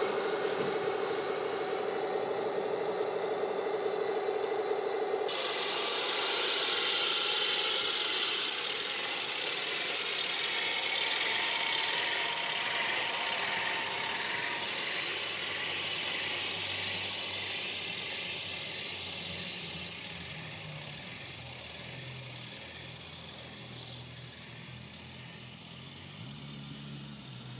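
Radio-controlled Tiger tank model: a steady hum while it stands, then from about five seconds in its electric drive motors, gearboxes and metal tracks running as it drives off over grass, growing fainter as it moves away.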